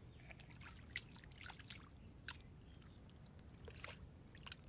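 Faint wet squelches and small clicks of a hand digging into soft mudflat mud around a buried basket trap, a dozen or so short sounds scattered irregularly.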